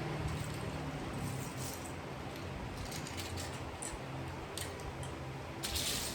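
Plastic Lego bricks being handled, giving a few scattered small clicks and a brief rustle near the end, over a steady low hum.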